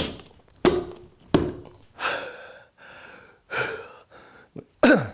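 A man breathing hard and gasping while he works, broken by several sharp knocks of a hammer working at a nail driven into a wooden joist.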